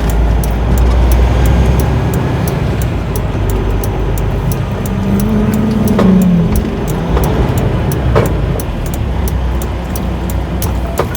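Semi-truck's diesel engine running with a low steady rumble, with music playing over it to a steady beat.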